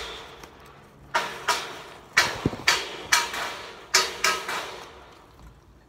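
Steel scaffolding parts clanging against one another during dismantling: a string of about nine sharp metal strikes, each with a short ring, packed into a few seconds.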